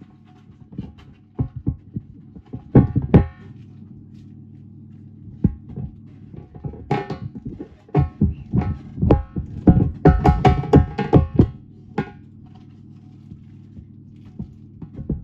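Football boots knocking and pressing against a toy banana: irregular thuds, many with a short pitched squeak, in clusters that are densest a little past two-thirds of the way through, over a steady low hum.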